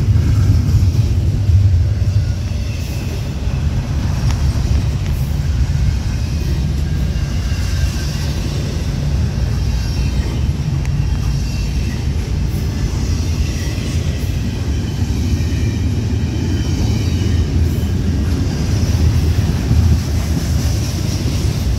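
Double-stack intermodal freight cars rolling past at close range: a steady, loud rumble of steel wheels on the rails.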